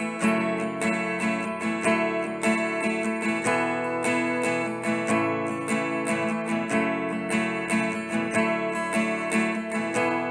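Acoustic guitar strummed in a steady rhythm of chords, playing the song's intro before the vocals come in.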